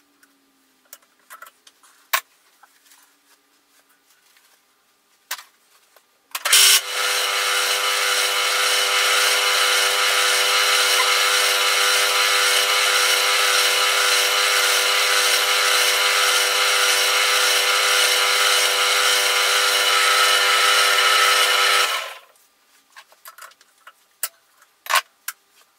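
Metal lathe running and winding spring steel (piano) wire onto a mandrel in the chuck to form a coil spring: a steady pitched whine over a loud hiss that starts abruptly about six seconds in and cuts out a few seconds before the end. A few light clicks of handling come before it and after it.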